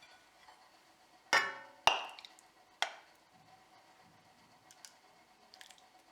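Hard household objects clinking: three sharp knocks within about a second and a half, the first two ringing briefly.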